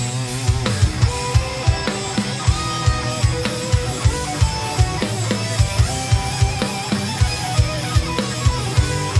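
Acoustic drum kit played hard with sticks in time with an instrumental progressive metal track of electric guitars: loud kick and snare hits a few times a second under fast, ringing guitar lines.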